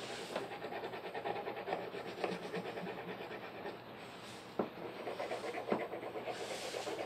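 Wax crayon rubbed rapidly back and forth on paper, a fast scratchy rasping, with a short break and a single tap a little past halfway.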